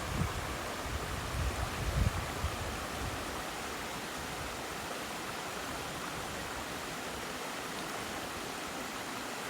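Waterfall on a river: a steady, even rush of falling water. A few low rumbles come in the first couple of seconds.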